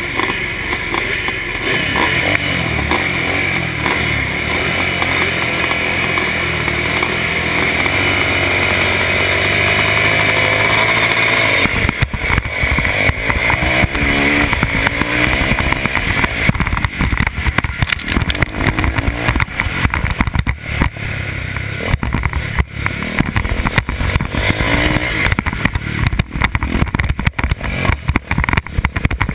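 Motocross motorcycles held at steady revs on the start line, then about twelve seconds in the engines open up hard as the bikes launch off the start gate. From then on the rider's own bike runs at full throttle, its note rising and falling through gear changes, choppy with buffeting over the helmet camera.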